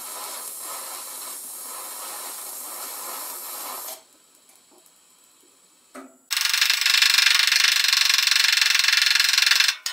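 A TIG welding arc hissing steadily on cast iron, fed with copper-wrapped stainless filler wire, stopping about four seconds in. After a short pause, a louder harsh, steady rattling from peening the fresh weld on the cast iron skillet.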